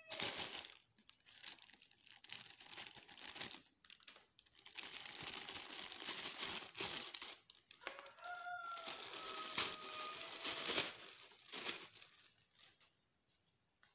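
Crinkling plastic packaging being handled in stretches as the drill's side handle is unwrapped. A chicken calls in the background about eight seconds in.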